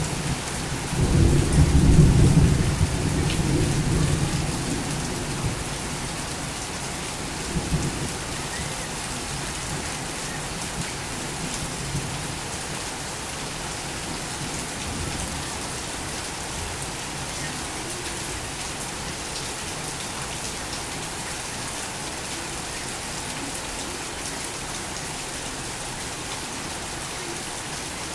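Torrential rain falling steadily. A roll of thunder rumbles low over it in the first few seconds, loudest about two seconds in, and dies away by about eight seconds.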